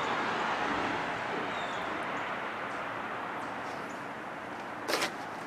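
Vacuum cleaner running steadily inside the house, heard from outside as a fading whoosh. A bird chirps once, faintly, and there is a brief sharp click near the end.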